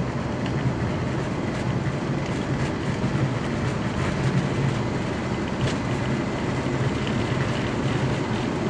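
Steady noise in an Airbus A330's flight deck during a takeoff at TOGA thrust, with the engines at full takeoff power. Engine and airflow noise with a constant low hum underneath and a few faint clicks.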